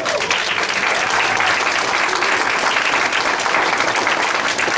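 Audience applauding: many hands clapping, steady and dense.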